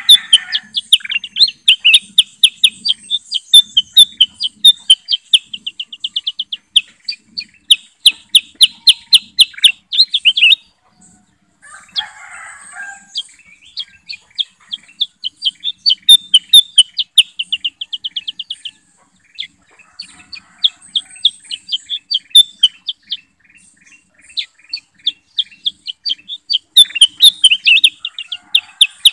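Bulbul song from kutilang emas and kutilang sutra, used as a lure call: fast runs of sharp chirping notes and rattling trills, broken by two short pauses.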